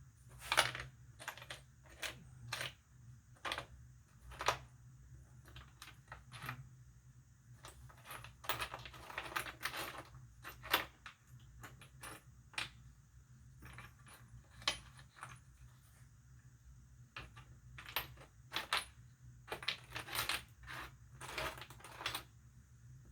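Small hard parts clicking and rattling as a hand rummages through Dremel tool bits and accessories, with irregular single clicks and two longer rattling stretches.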